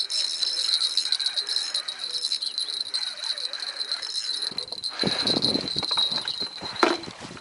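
A steady high-pitched tone with rapid rattling chirps over it. From about five seconds in, low rumbling and rubbing noise with a sharp knock, as the body-worn camera is moved about.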